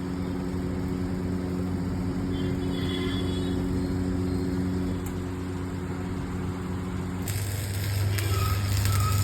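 A workshop machine running with a steady hum, which gives way about seven seconds in to the crackle and buzz of arc welding.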